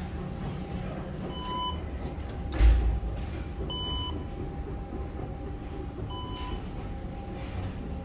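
Short electronic beep, sounding at two pitches together and repeating about every two and a half seconds, over the steady low hum of a metro station with a train standing at the platform. One heavy thump about two and a half seconds in.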